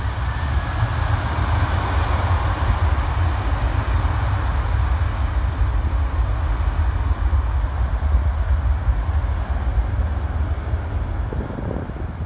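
United Airlines jet airliner on its landing roll: steady jet engine roar with a faint whine falling in pitch near the start, easing off toward the end. Heavy wind rumble on the microphone underneath.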